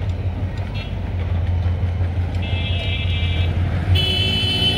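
Diesel locomotive horn sounding twice as the train approaches, a short blast and then a longer one starting about four seconds in, over a steady low rumble.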